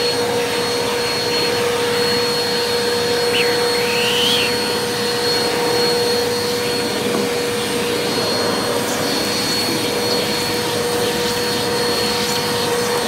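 Eureka NEU180B Power Speed upright vacuum running through its hose and hand tool as the tool is worked over stair carpet, drawing up ground-in dust and dirt. A steady rushing drone with a constant hum.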